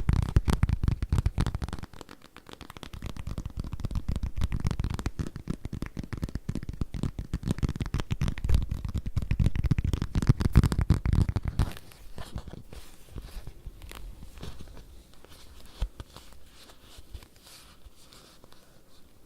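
Rapid tapping on leather, a dense run of soft, dull taps. About twelve seconds in, the tapping turns quieter and sparser.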